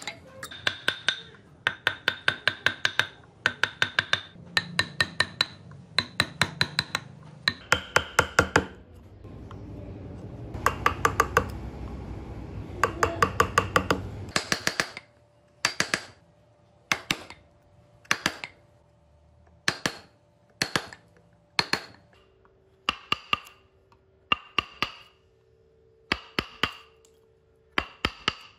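Steel wood chisel being struck to cut into a wooden carving, each blow a sharp, ringing clink. The blows come in quick rapid runs at first, then about halfway through slow to single strikes roughly once a second.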